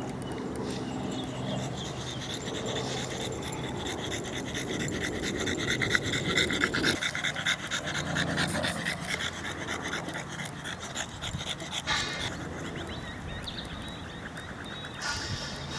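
French bulldog panting fast and hard after running.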